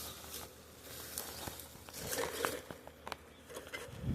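Scattered light clicks and scrapes as the lid of an underground utility box is pried open.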